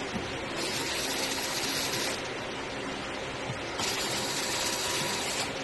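Handheld power tool running in two bursts of about a second and a half each, separated by a short pause, over a steady background hiss.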